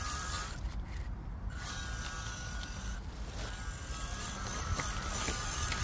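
Small electric RC truck motor and upgraded transmission whining under throttle, stopping briefly twice as the throttle is let off. The tyres crunch through dry leaf litter.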